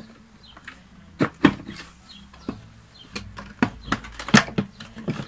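Plastic knocks and clicks as the red plastic housing of an Eta Neptun trio vacuum cleaner is handled and its top cover is lifted off. There are about a dozen short sharp taps at uneven intervals, the loudest a little past four seconds in.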